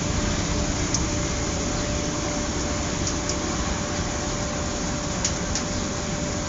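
Biomass sawdust burner running: a steady rushing noise of its blower and flame with a constant hum, and a few faint high ticks.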